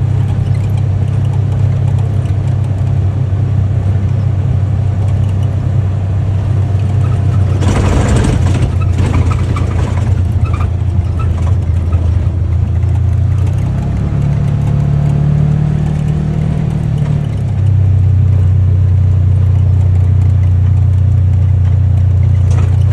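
UTV engine running steadily under way, a low drone. Its note steps up for a few seconds past the middle, then drops back and runs a little louder near the end, with a brief noisy rush about a third of the way in.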